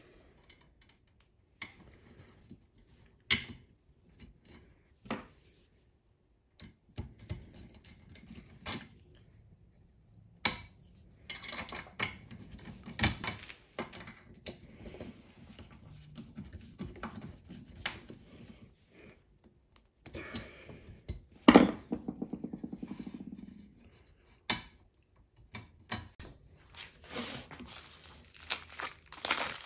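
Scattered metallic clicks and clinks of hand tools working the belt tensioning and locking bolts on an X-Carve CNC's Y-axis rail, with a short run of rapid clicks about two-thirds of the way through.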